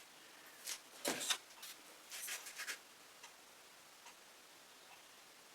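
A few short, soft scrapes and taps from paint tools and paint containers being handled in the first half, then a faint tick or two over quiet room tone.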